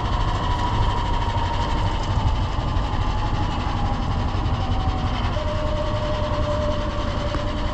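Golf cart driving along a road, its motor whining in a thin tone that slides slowly down in pitch and steps lower about five seconds in, over a steady low rumble.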